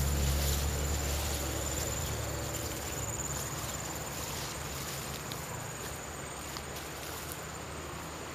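Insects trilling steadily in one high, unbroken tone, over a rustling haze from walking through tall grass. A low rumble fades away over the first couple of seconds.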